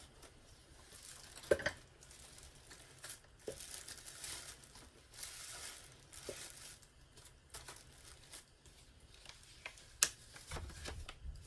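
Tissue paper and a paper envelope rustling and crinkling as a small doll suitcase is opened and its contents handled, with a few sharp clicks, the loudest about ten seconds in and another about a second and a half in.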